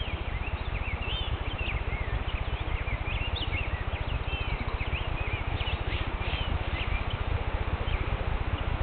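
Songbirds chirping in many short rising and falling calls, over a steady low fluttering rumble.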